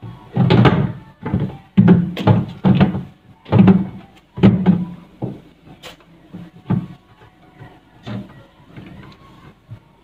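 Clear plastic fridge crisper drawer being handled and pushed back in, giving a run of irregular hollow knocks and rattles that are loudest in the first half and fainter after.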